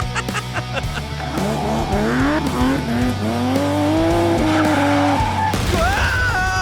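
Cartoon vehicle sound effect: an engine note revving up in pitch and easing off, then a short high squeal near the end, over background music.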